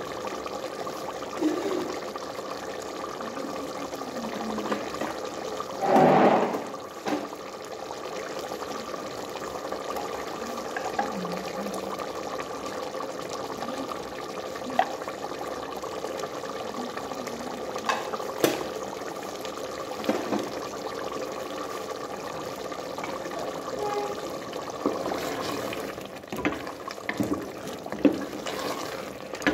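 Chickpea curry bubbling at a rolling boil in a large aluminium pot, a steady hiss of simmering liquid. A brief louder noise comes about six seconds in, and there are scattered sharp clicks, with a wooden spoon knocking against the pot near the end.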